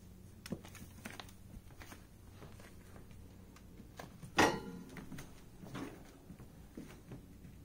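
A puppy's claws ticking and scrabbling on a hardwood floor: scattered light clicks and knocks, with one louder knock carrying a brief squeak a little past halfway, over a low steady hum.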